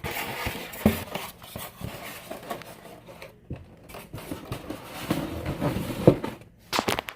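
Rustling and handling noise with several sharp knocks, about a second in, around six seconds and near the end, as ceiling fan parts and packaging are moved and set down.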